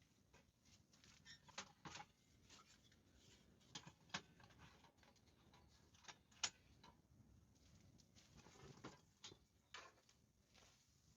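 Faint, irregular clicks and taps, a dozen or so scattered through, the sharpest about six seconds in.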